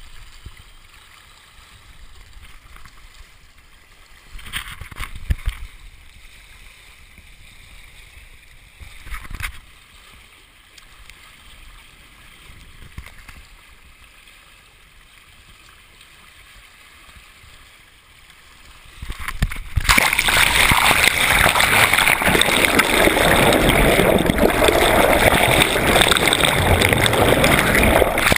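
Water sloshing and gurgling around the hulls of a small Hobie Cat sailing catamaran under way. It stays quiet with a couple of brief splashes, then about two-thirds of the way through it turns to a loud, continuous rushing splash.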